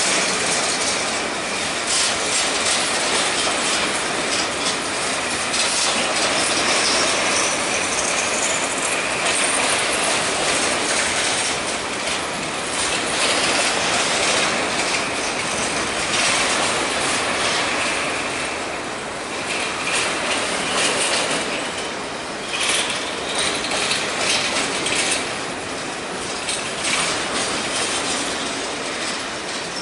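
Empty covered hopper grain cars rolling past, their steel wheels clicking and knocking over the rail joints in a continuous clatter.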